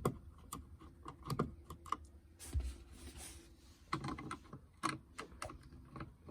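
Irregular light clicks and taps of a Phillips screwdriver working screws out of a plastic dashboard fascia panel, with a brief scraping rustle about two and a half seconds in.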